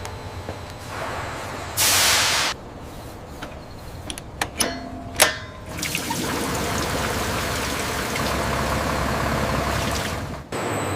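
A short, loud hiss of released air about two seconds in, then a few sharp clicks and knocks, then a steady rushing mechanical noise that cuts off abruptly near the end.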